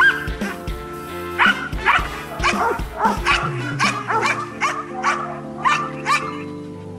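Belgian Malinois guard dog barking in a quick series of sharp barks, about two a second, that stop about a second before the end. It is held on a leash and barks at a decoy in protection training. Background music with sustained tones plays underneath.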